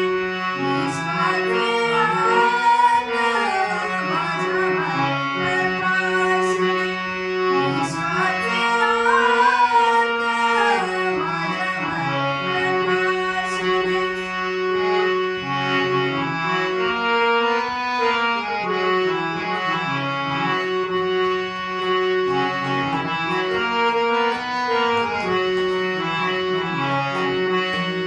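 Music with sustained organ-like notes stepping up and down in a slow melody, and wavering higher notes that come and go over them.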